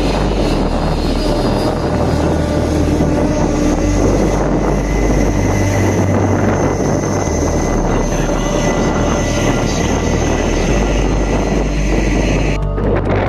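Jet airliner engines running loud and steady: a low rumble with steady high-pitched whines on top. The whines cut off abruptly near the end.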